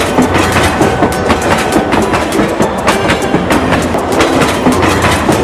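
Train running along the track: a steady clatter of wheels over the rails.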